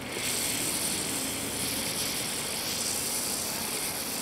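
Sodium metal reacting with the water in a jar of cola, giving off hydrogen: a steady hiss that starts suddenly and keeps on fizzing.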